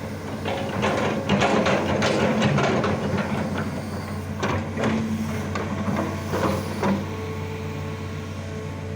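A machine hums steadily, with bursts of rattling and clicking over it: a long spell from about a second in, then shorter ones near the middle and at about seven seconds.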